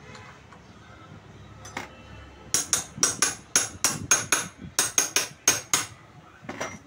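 Hammer striking metal in a rapid run of about fifteen sharp, ringing blows, four or five a second, over some three seconds, then one more blow near the end. The blows fall on a diesel injector held in a bench fixture whose nozzle nut is very tight and is being knocked loose to open the injector.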